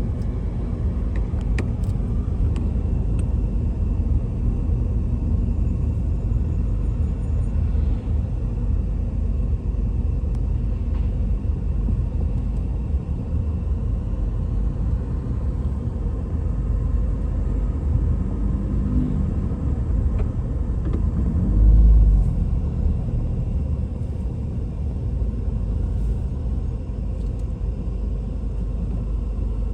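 A steady low rumble, with a brief louder low swell about two-thirds of the way through.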